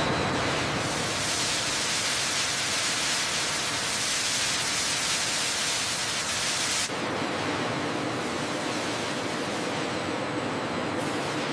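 Steady rushing noise with no clear pitch. About seven seconds in it cuts abruptly to a duller, lower noise with a faint hum.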